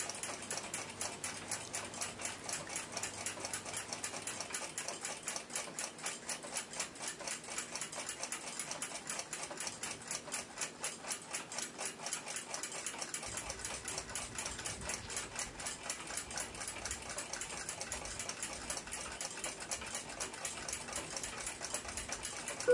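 A mechanical clock ticking fast and steadily, about four beats a second.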